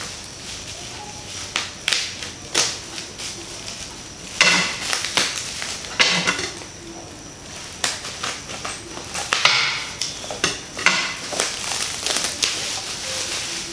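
Clear plastic bag and bubble wrap crinkling and rustling in irregular bursts as a package is unwrapped by hand, with the loudest flurries about four and a half seconds in and again around nine to eleven seconds.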